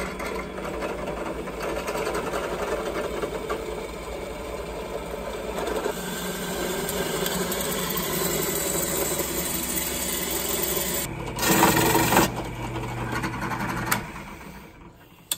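Drill press driving a step bit through square steel tubing: a steady metal-cutting grind and chatter as the bit works its way up to a 1-inch hole. It gets louder and harsher for about a second about three-quarters through, then dies away near the end.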